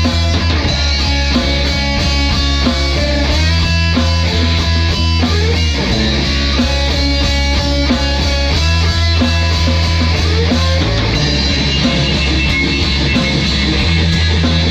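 Heavy rock music with guitars over sustained low bass notes that shift every few seconds.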